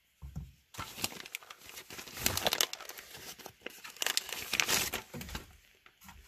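Plastic packaging crinkling and tearing as a rifle magazine is unwrapped by hand, in irregular bursts of crackle that die away near the end.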